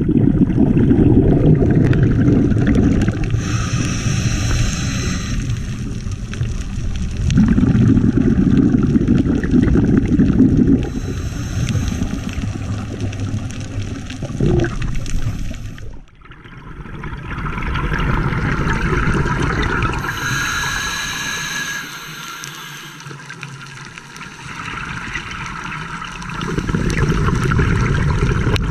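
Scuba diver breathing through a regulator, heard underwater: long bubbling exhalations alternate with hissing inhalations every few seconds, with a sharp break about halfway through.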